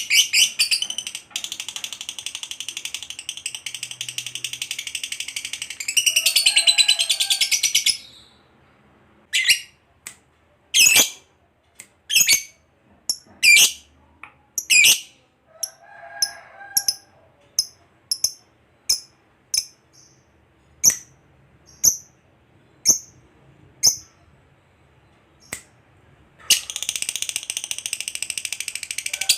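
Lovebird singing: a long, fast, high-pitched trill for the first several seconds, then single sharp chirps about one a second. The rapid trill starts again near the end.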